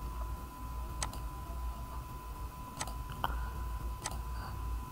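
Computer mouse clicking: four sharp, separate clicks, about a second in, twice close together near three seconds, and again about four seconds in. Under them a faint steady electrical hum and whine.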